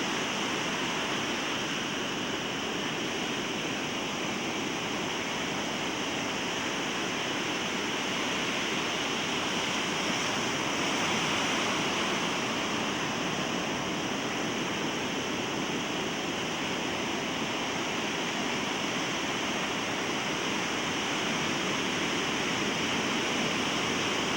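Rough Pacific Ocean surf breaking and washing up the beach: a continuous rush of water that swells slightly about ten seconds in and again near the end.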